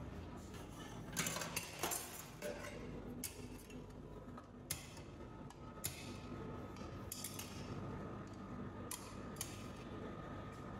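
Metal spatula and tongs clicking and scraping against the steel cold plate of a rolled ice cream counter as the rolls are lifted into a cup, in light scattered clinks.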